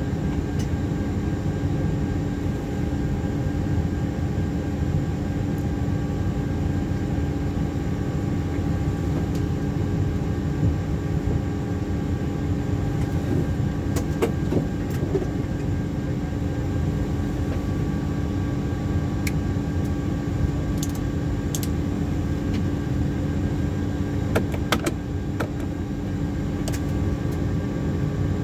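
Steady cockpit hum of a Boeing 737-800 at low power on the stand, a constant rushing noise with several steady tones through it. A few sharp clicks sound now and then.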